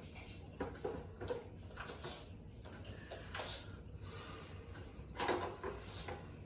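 Hard plastic parts being handled: a scatter of short clicks, scrapes and rustles, several of them about a second apart, over a low hum.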